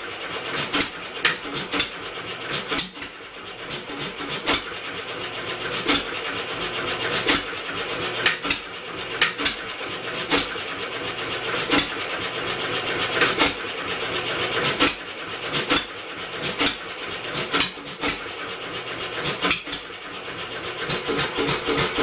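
Homemade four-cycle engine built from a two-cylinder air compressor, running under a steady mechanical hum with sharp, irregular firing pops about one or two a second. The uneven firing shows it struggling to keep running.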